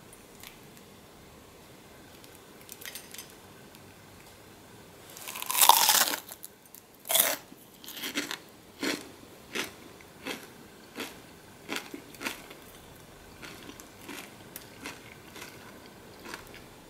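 Crispy fried breadcrumb coating of a cheese corn dog crunching: a long, loud crackle about six seconds in, then a run of sharp crunches roughly every 0.7 s that grow fainter.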